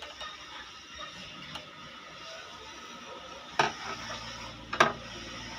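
Faint mechanical clicking from a chain-stitch sewing machine's needle and looper mechanism being worked by hand with a steel rod, with two sharper metallic clicks about three and a half and nearly five seconds in.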